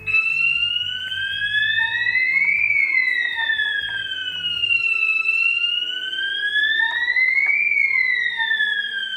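Electronic wailing siren, rising and falling slowly twice, starting abruptly at the start and cutting off suddenly near the end, over quiet background music.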